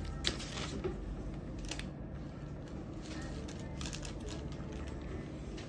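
Paper rustling in a few short, soft crinkles as a small white paper bag is folded and handled.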